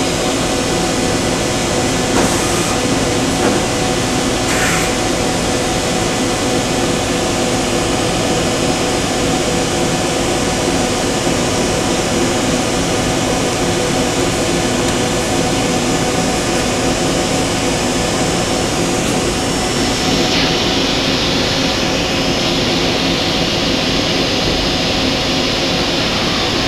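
Okuma MA-50HB CNC horizontal machining center running at a standstill: a steady machine hum with several steady tones under a hiss. There are two light clicks in the first five seconds, and about two-thirds of the way through the hiss changes, the highest part dropping away while a middle-high hiss grows.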